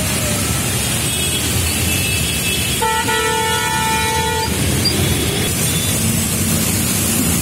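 A vehicle horn honks about three seconds in, one steady tone lasting about a second and a half, over a steady wash of traffic and tyre noise on a wet road.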